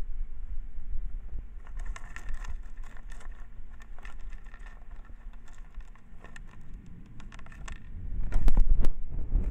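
Dwarf hamster rustling through paper bedding and sunflower seeds right against the microphone, with a run of fine crackles and clicks through the middle. Loud low bumps on the microphone come near the end.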